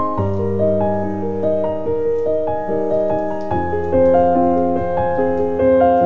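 Background piano music: a melody of evenly spaced notes over held low notes, the bass moving to a new note about halfway through.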